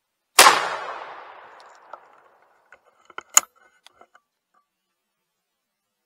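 A single shotgun blast from a Winchester single-shot shotgun about half a second in, its echo rolling off and fading over about two seconds. A few sharp clicks follow around three to four seconds in, the loudest near the middle.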